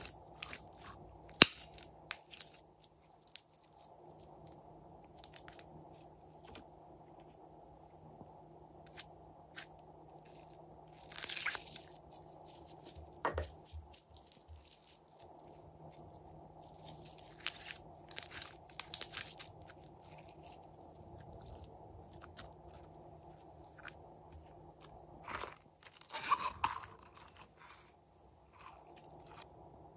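Glossy glitter slime being squeezed, stretched and pulled apart by hand: scattered sticky clicks and crackles, with short bursts of crackling about a third of the way in, around the middle and near the end.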